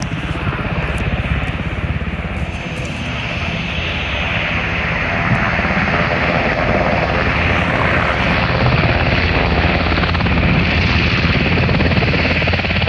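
CH-148 Cyclone helicopter's main rotor beating rapidly over the whine of its twin turboshaft engines as it hovers low and moves toward the camera, getting gradually louder.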